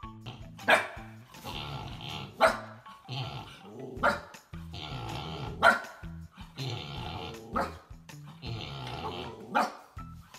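Husky puppy barking in short, sharp yaps, about six of them, one every one and a half to two seconds, trying to wake a sleeping pig. Background music runs underneath.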